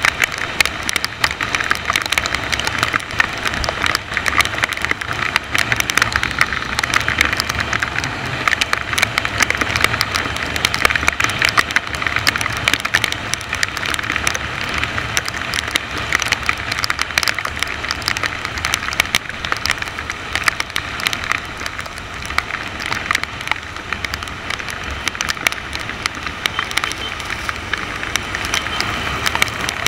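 Steady rush of wind and wet road noise while riding a motorcycle through rain, with a dense crackle of raindrops striking the camera.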